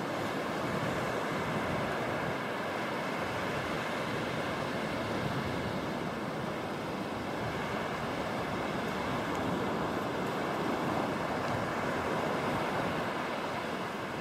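Small waves breaking and washing up a shallow sandy beach, a steady hiss of surf with some wind on the microphone.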